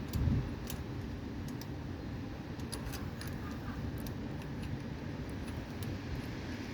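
Small, irregular metallic clicks and clinks of a 10mm socket and hand tool working the bolts on a small engine's air-filter mount, over a low, steady rumble.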